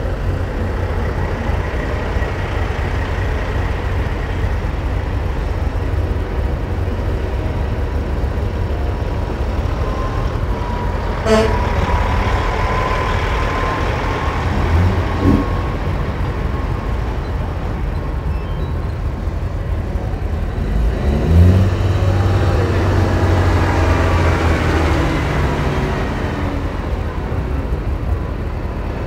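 Custom diesel semi trucks driving slowly past one after another, their engines giving a steady deep rumble. About 21 seconds in, one truck's engine revs up and gets louder as it pulls by.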